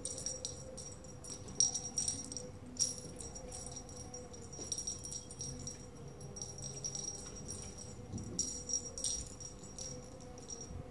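Small bell on a cat wand toy jingling in quick, irregular shakes as the wand is waved and batted at by kittens.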